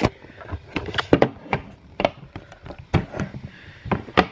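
Handling noise: a quick run of light knocks, taps and rustles as objects and the camera are moved about.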